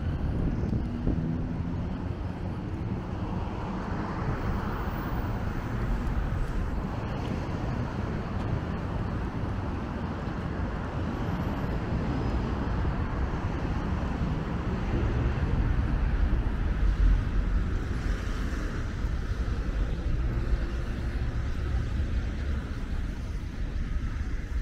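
Road traffic: cars and vans passing, a steady low rumble that grows a little louder for a few seconds past the middle.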